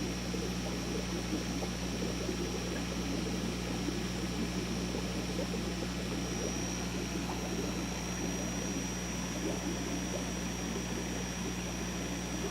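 Aquarium equipment running steadily: a constant motor hum with a thin high whine, over a fluttering burble of moving water.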